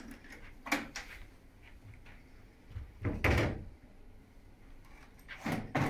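The tool-less side panel of a Lenovo ThinkStation PX workstation being unlatched and lifted off the case: a sharp click just under a second in, a louder clunk about three seconds in, and more knocks near the end.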